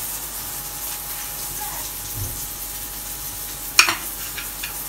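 Steady sizzle of food frying in hot oil, with one sharp click of a kitchen knife against a plate near the end as a tomato is sliced.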